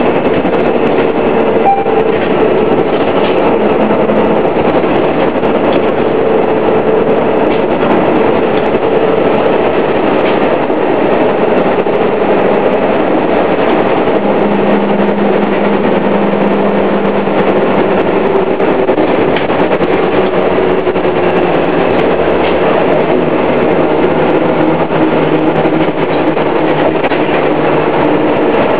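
Detroit Diesel Series 50 engine and Allison B400R transmission of a 2000 New Flyer D60 articulated bus under way: a steady, loud drive noise with a whine that drifts slowly up and down in pitch.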